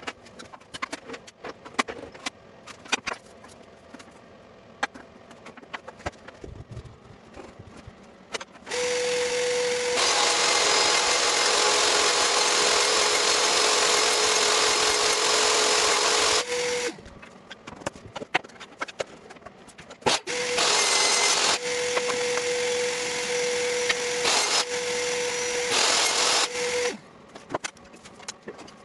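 Benchtop table saw running: a steady motor tone under a loud rushing noise as the blade cuts thin strips of oak. It runs for about eight seconds from about a third of the way in, then again for about six seconds, with the rushing rising and falling over several short cuts. Before that, small clicks and knocks of the fence being set and wood being handled.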